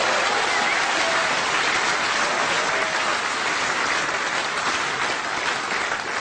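Studio audience applauding steadily, the clapping easing off slightly near the end.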